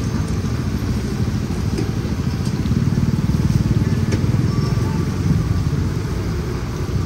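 A motor-vehicle engine, such as a motorcycle, running close by with a steady low rumble that swells slightly about halfway through, over street noise.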